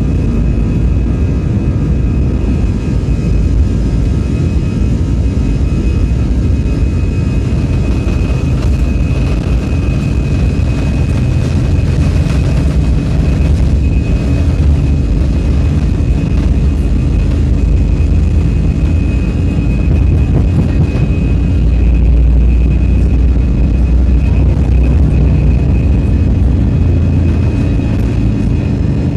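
Airbus A320 jet engines at takeoff thrust heard from inside the cabin: a loud, steady deep rumble with a steady high whine over it.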